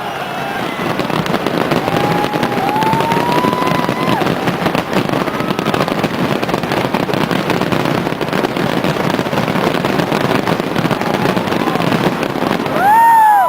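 A fireworks display crackling and popping densely and without a break. A few voices from the crowd rise over it, with a loud whoop near the end.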